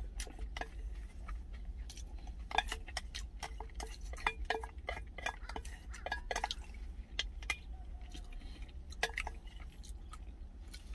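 A spoon scraping and clinking against the inside of a stainless steel food container in irregular short clicks, over a steady low hum.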